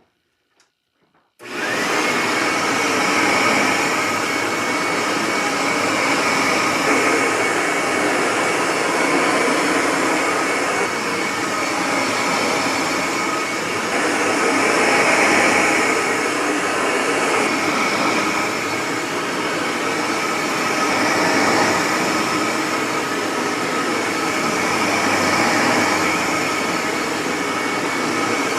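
Upright vacuum cleaner switched on about a second and a half in, its motor then running steadily at full speed with slight rises and falls in level.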